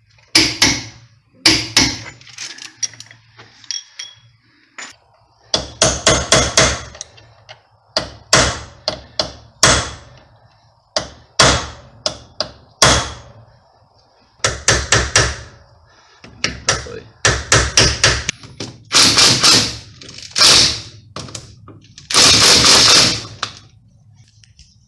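Tools striking and rattling against the steel hub and wheel bearing during a bearing replacement: clusters of rapid metallic impacts, with several longer rattling bursts of a second or more near the end, like an impact wrench or a run of hammer blows.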